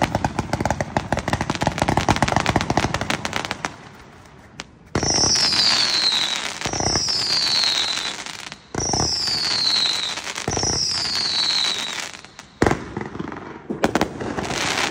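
Consumer firework cake firing: a dense, rapid crackle of shots, then four shots about two seconds apart, each a launch thump followed by a falling whistle. A few scattered reports come near the end.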